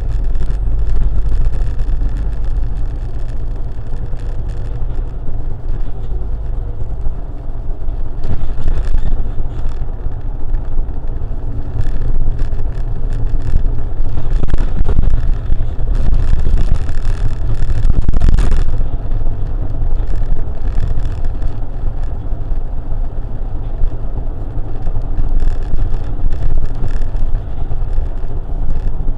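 Low, steady rumble of a vehicle driving along a city road, engine and tyre noise together. It swells louder in the middle, with a brief loud rush about eighteen seconds in.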